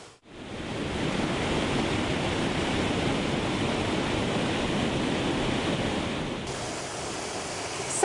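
Waterfall rushing into a pool: a steady, even roar of falling water that fades in just after the start, then turns slightly quieter and duller about six and a half seconds in.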